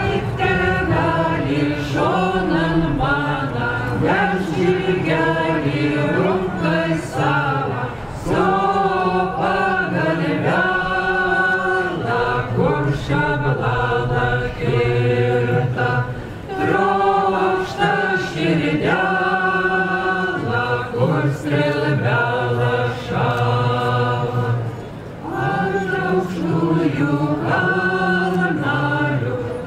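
A folk ensemble of several voices singing together in long phrases, with brief breaks between them.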